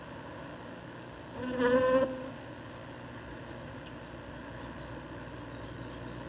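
Bumblebee buzzing in flight: one steady buzz a little over a second long, about a second and a half in, rising slightly in pitch at its end.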